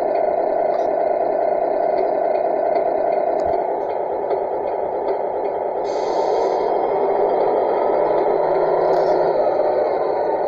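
Steady, rough mid-pitched drone from the model Scania truck as it drives.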